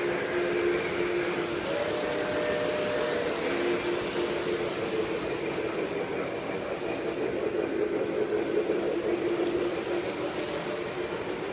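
O-scale model freight trains rolling past on three-rail track, with a continuous rumble of wheels and a steady hum whose pitch steps up about two seconds in and back down over a second later.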